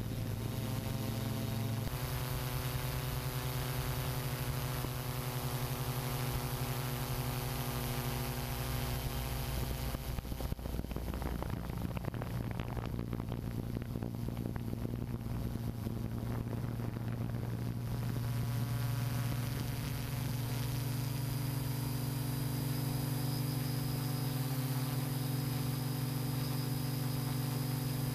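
Multirotor drone's electric motors and propellers humming steadily, heard from the aircraft itself with a wash of air noise; the pitch steps to a new level a few times as the hexacopter changes speed.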